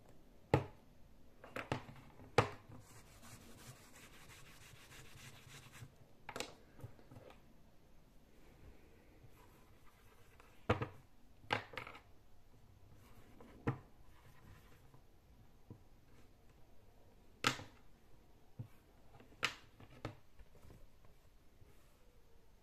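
A small plastic-framed dry-erase whiteboard and its markers being handled, wiped and written on: about ten sharp clicks and knocks scattered through, with a few seconds of soft rubbing starting about two seconds in.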